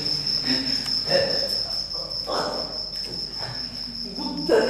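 Crickets chirping in one continuous high trill, with faint voice-like sounds under it and a louder voice coming in near the end.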